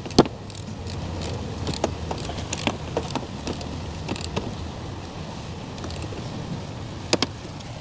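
Scattered light clicks and taps of hand tools on the valve cover bolts as they are run down, with a quick double click near the end, over a steady low rumble.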